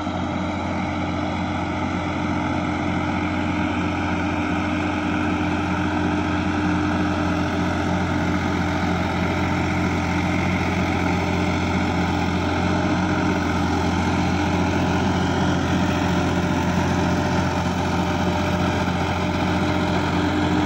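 Sonalika DI-50 RX tractor's diesel engine running steadily under load while tilling a flooded, muddy paddy field, growing gradually louder as it comes closer.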